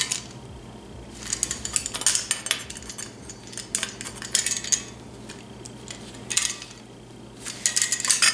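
Homemade shrinking pliers, locking Vise-Grip pliers with welded-on steel teeth, clicking and clinking as they crimp folds into the edge of a thin steel sheet, with the sheet rattling. The clatter comes in four short bursts, over a low steady hum.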